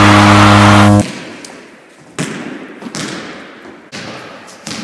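A loud, steady, buzzing horn blast, as of a goal horn, cuts off sharply about a second in. Then a ball is struck or bounces about three times, each thud echoing in a large gym.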